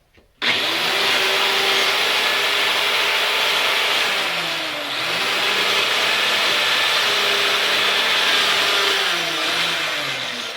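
Handheld power tool cutting into a porch column: its motor starts suddenly and runs loud and high-pitched, and the pitch sags twice as the blade bites into the column before it winds down near the end.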